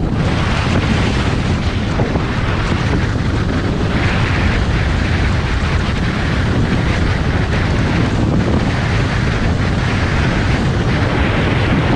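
Loud, steady wind buffeting the microphone on a moving bass boat, with rushing air and water noise.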